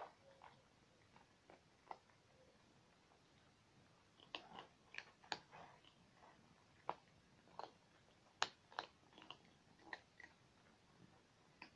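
Domestic cats eating from a shared bowl: soft, irregular chewing clicks, sparse at first and coming thicker from about four seconds in.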